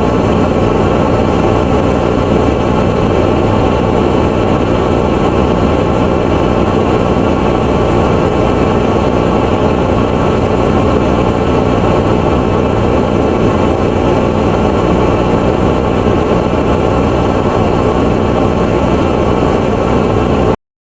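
Loud, steady noise with no tune or speech, heaviest in the low and middle range, that cuts off suddenly near the end.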